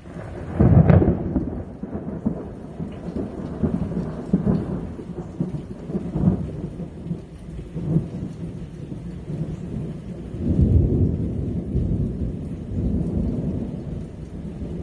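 Thunder: a sudden loud clap about a second in, then a long rolling rumble that swells again around ten seconds in.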